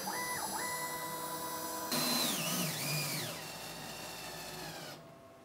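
Home-built CNC milling machine running: its motors whine in steady tones that step and glide up and down in pitch as the axes change speed, over a steady high whine. It gets louder about two seconds in and drops lower near the end.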